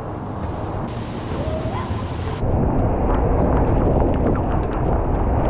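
Heavy waterfall roaring close by, a dense steady rush of falling water with wind buffeting the microphone. It jumps abruptly to a louder, fuller roar about two seconds in.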